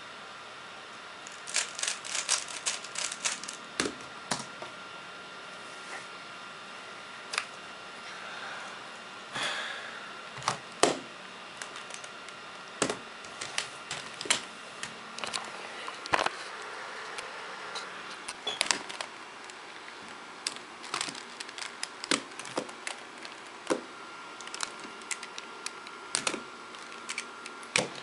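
Plastic Rubik's cube clicking in quick runs as its layers are turned, then scattered clicks and knocks as cubes are handled and set down on a table.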